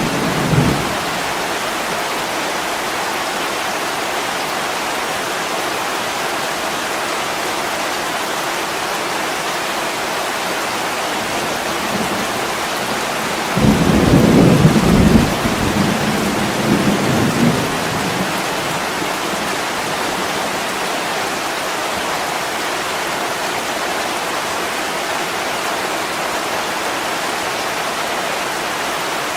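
Steady heavy rain on a window, with a low roll of thunder about halfway through that swells for a few seconds and fades.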